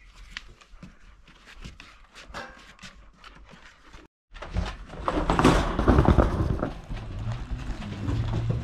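Dogs close to the microphone, quiet small clicks and steps at first. After a sudden break about halfway, loud scuffling and rustling as they crowd in, then a steady low hum with a short high squeal near the end.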